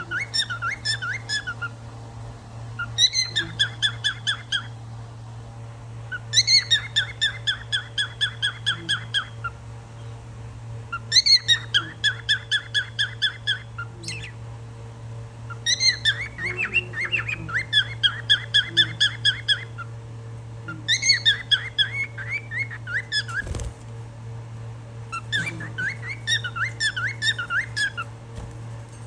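Pet cockatiel chirping and whistling in about seven bursts of quick repeated notes, each burst a couple of seconds long with short pauses between. A steady low hum runs underneath.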